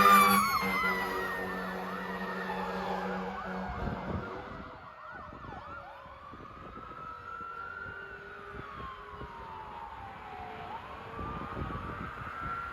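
Fire engine's air horn sounding over its sirens, dying out about four seconds in. A fast yelping siren and a long siren tone winding down in pitch give way to a slow rising-and-falling wail, growing fainter.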